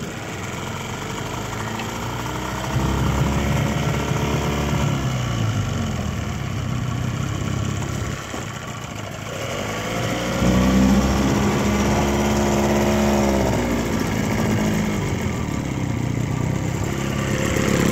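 A 1979 Johnson 9.9 hp two-cylinder two-stroke outboard motor running under way. Its engine speed rises about three seconds in, drops back around eight seconds, opens up again about ten seconds in, then eases off and picks up once more near the end.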